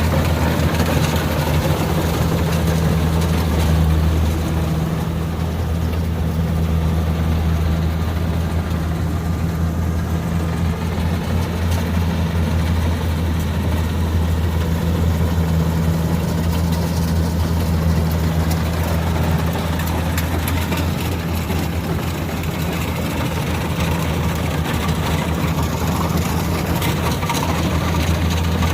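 Kubota DC60 combine harvester's diesel engine running at a steady speed: a deep, even hum with no revving.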